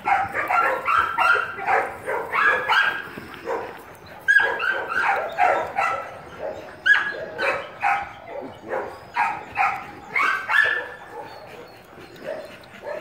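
Dog barking in short, high barks and yips, many in quick, irregular succession, thinning out near the end: excited play barking.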